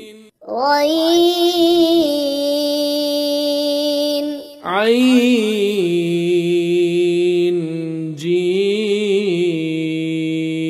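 A voice reciting Arabic letter names in a drawn-out, chant-like manner, as in a Quran-reading primer lesson. It comes as two long, held tones with a slight waver, the second beginning about four and a half seconds in.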